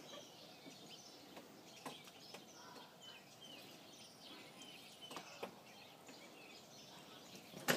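Outdoor ambience with birds chirping faintly, short scattered chirps, and a few soft clicks, then a sharp knock near the end.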